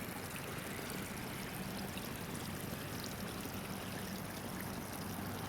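Water spraying steadily from the sprinkler holes of a backyard water slide's splash mat, an even, constant hiss.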